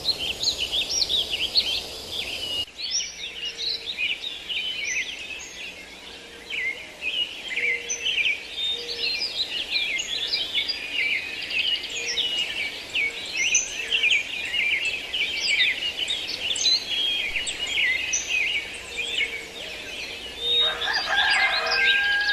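A dense chorus of many small birds chirping and twittering together, with a faint short low note repeating about once a second. A lower, louder call joins near the end.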